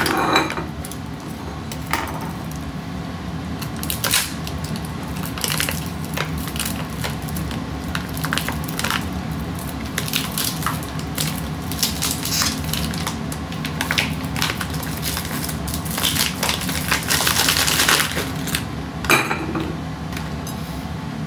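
Plastic bag crinkling and rustling as food is handled in it: irregular crackles that come thickest about three-quarters of the way through, over a steady low hum.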